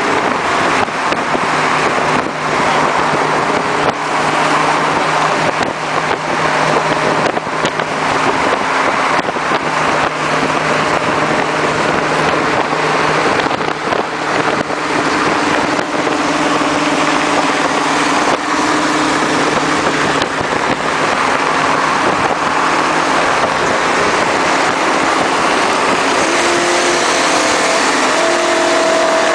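Cars cruising at freeway speed, heard from a moving car: a steady engine drone under loud rushing wind and road noise.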